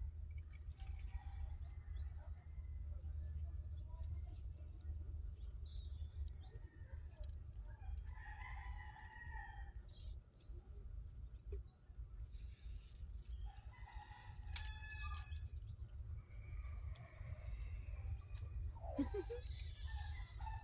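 Outdoor ambience of scattered bird chirps and calls, a few of them longer, over a steady low rumble.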